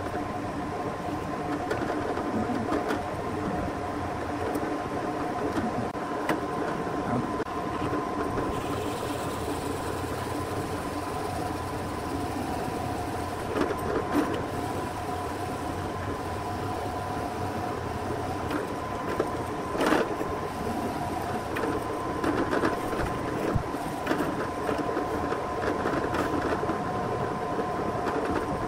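Drill press running with a Forstner bit boring into a block of wood: a steady motor hum over a rough cutting noise, with a couple of sharp clicks about halfway through.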